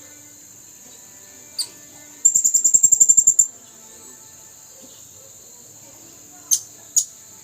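A male blue-crowned hanging parrot (serindit) calling: one sharp high-pitched call, then a rapid trill of about a dozen notes lasting about a second, then two more short sharp calls near the end. A steady high-pitched insect drone runs underneath.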